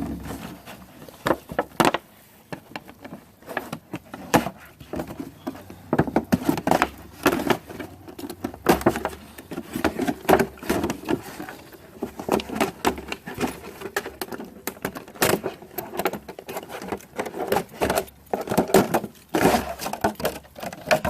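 Irregular clicks, taps and rustles from a plastic milk jug and ruler being handled and worked on while it is made into a rain gauge.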